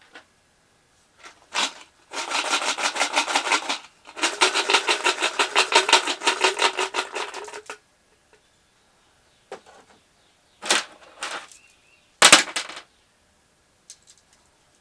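Rapid mechanical clicking rattle, about ten clicks a second, in two runs of about two and four seconds, followed by a couple of sharp clattering knocks.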